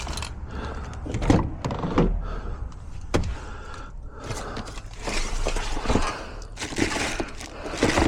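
Knocks, clicks and clatter of items being moved about while rummaging through a van, searching for spray cans.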